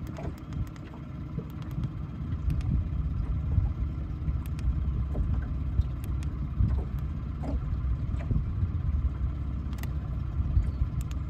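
Low, steady rumble of a boat's engine running under way, with a few light clicks.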